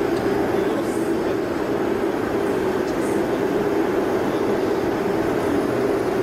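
Steady machine drone from a mechanical boiler-panel bending machine running, with a couple of faint clicks.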